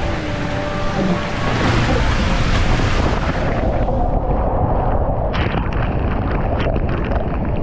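Water rushing as a rider slides down an enclosed water slide into an open bowl, with a steady rush of water over the body-worn camera. The sound goes dull about three to four seconds in, then sharp splashes of water hit the camera from about five seconds in as the rider swirls around the bowl.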